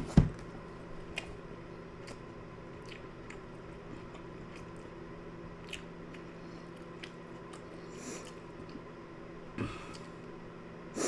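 A person chewing a mouthful of undercooked, still-cold fettuccine Alfredo, with soft wet mouth clicks over a steady low room hum. A sharp knock at the very start, as a bowl is set down on the table.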